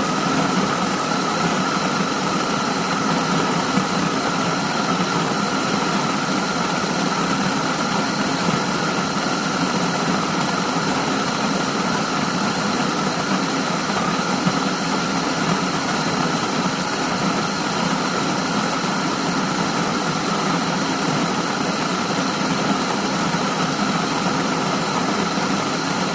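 Coffee grinder grinding beans, a loud steady whirring grind that runs without a break.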